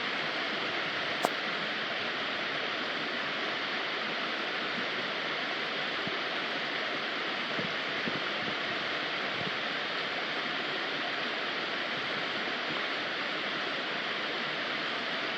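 Waterfall: a steady, even rush of falling water, with one short sharp click about a second in.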